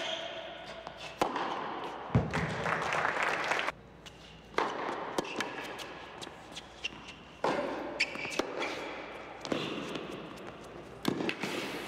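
Tennis ball thuds: racket strikes and bounces on an indoor hard court, several sharp knocks scattered through, the loudest about two seconds in. Between them are stretches of crowd noise in a large hall.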